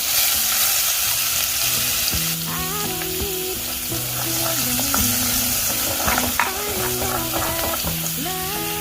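Food sizzling steadily in a hot pan, with soft background music coming in about two seconds in.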